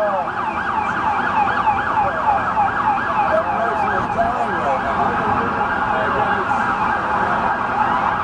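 Several emergency vehicle sirens sounding at once, overlapping: fast yelps of about four a second layered over slower rising-and-falling wails, above a steady background noise.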